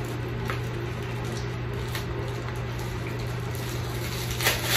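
Steady low hum under an even background hiss, with a few faint clicks.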